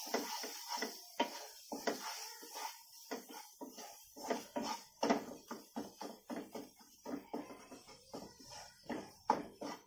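Wooden spatula scraping and knocking against a metal kadai while stirring a thick masala paste as it fries, in quick, irregular strokes of about three a second.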